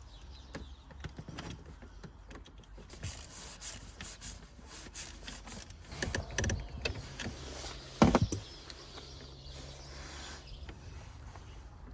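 Hand work on a car battery connection: scattered clicks, rattles and knocks of tools and metal parts, with a loud knock about eight seconds in.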